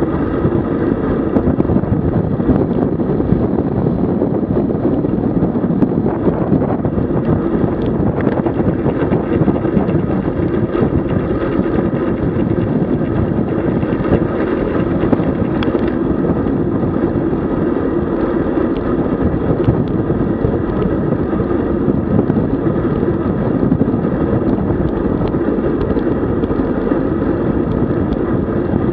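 Steady wind rushing over the microphone of a camera riding along on a moving road bicycle.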